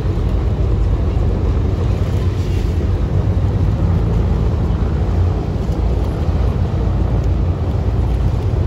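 Steady low rumble of a ferry under way: engine drone and hull noise with no breaks.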